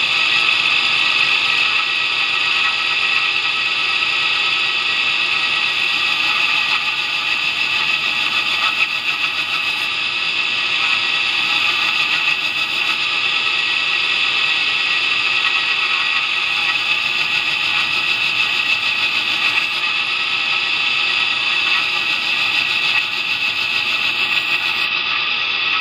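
2x72 belt grinder running a fine Scotch-Brite surface conditioning belt, with a steel knife blade held against it to finish the bevel: a steady high whine with a hiss.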